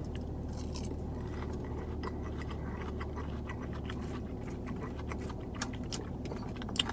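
A person chewing a mouthful of salad with mouth closed, with small clicks and scrapes of a fork in a plastic salad container and one sharper click near the end. A steady low hum of the car cabin runs underneath.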